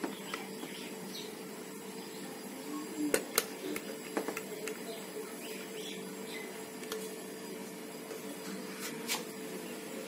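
Scattered light clicks and taps from handling a refrigerator's fan motor and a pump oil can while oiling the jammed motor, two sharp clicks close together about three seconds in, over a steady low hum.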